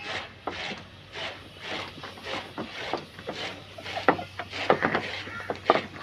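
Hands pressing and turning kneaded chapati dough in a steel bowl: irregular soft slaps, rubs and scrapes against the metal.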